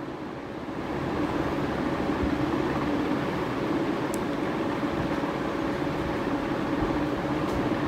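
Sliced onions sizzling in hot oil after being tipped into the pan with garlic and green chillies and stirred with a spoon; the sizzle swells about a second in and then holds steady.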